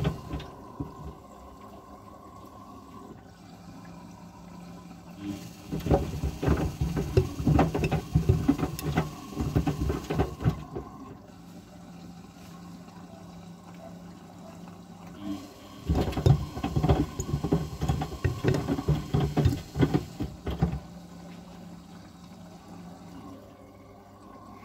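Old Samsung front-loading washing machine taking in water for the final rinse with sneakers in the drum. Twice, the drum turns for about five seconds, with the shoes knocking and water sloshing. In the pauses between turns, the quieter steady sound of water running in.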